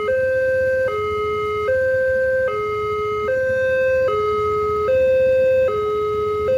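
Railway level-crossing warning alarm sounding an electronic two-tone signal. It switches back and forth between a lower and a higher pitch about every 0.8 s, steady and loud. This is the crossing's signal that a train is approaching and the barriers are closing.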